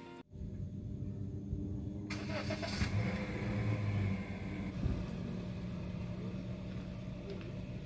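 A motor vehicle engine running with a steady low hum, a little louder about two to four seconds in.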